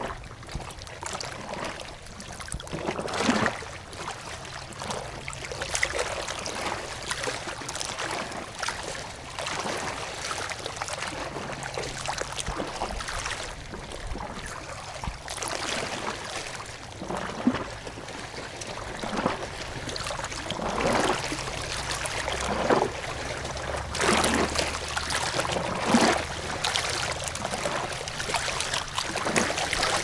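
Running water splashing and gurgling unevenly, with irregular louder splashes now and then, a few stronger ones in the second half.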